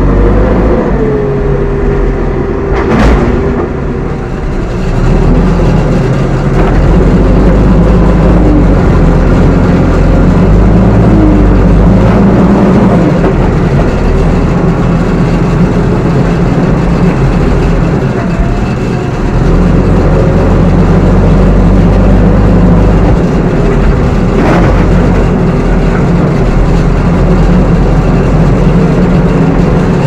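JCB 3DX backhoe loader's diesel engine running hard and rising and falling in speed while the loader works, with a sharp knock a few seconds in and another about 25 seconds in.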